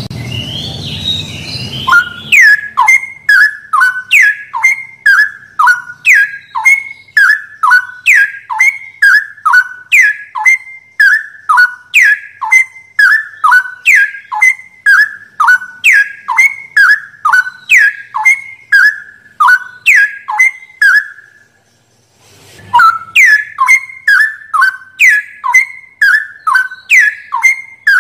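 Straw-headed bulbul (cucak rowo) song: a loud whistled phrase of quick falling notes, repeated over and over nearly twice a second. The phrase breaks off for about a second three-quarters of the way through, then starts again.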